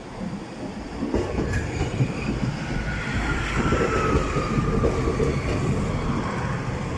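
Cummins-engined Class 156 and Class 153 diesel multiple unit running close past along the platform: diesel engine rumble and the clatter of wheels over the rails, building about a second in. A thin whine slides slowly down in pitch through the middle of the pass.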